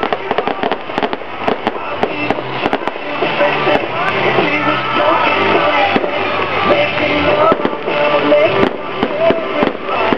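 Aerial fireworks going off in a string of sharp bangs and crackles over loud music. The bangs thin out in the middle, while the music carries on, and pick up again near the end.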